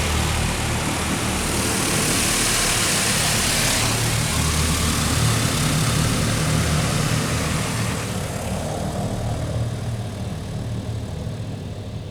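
High-pressure water jets from a WashTec SoftCare2 Pro Combiwash side blaster spraying against the car, heard from inside the cabin as a dense, steady hiss over a low machine hum. The spray grows fainter over the last few seconds.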